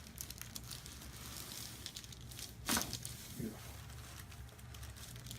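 Chiropractic adjustment: soft rustling of cloth and table paper as the patient is handled, then one sharp joint crack about two and a half seconds in.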